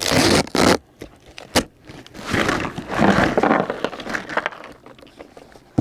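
A taped cardboard parcel being torn open: a harsh tearing for about the first second, then cardboard and plastic-bagged contents rustling as the box is lifted off them.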